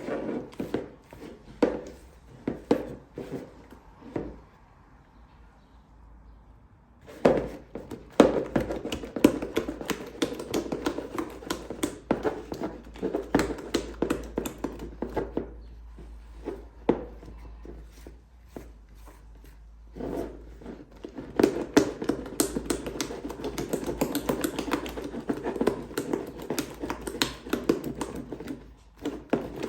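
Thick chocolate frosting being mixed by hand in a bowl: quick, repeated taps and scrapes of the mixing utensil against the bowl, in three bouts with short pauses between them.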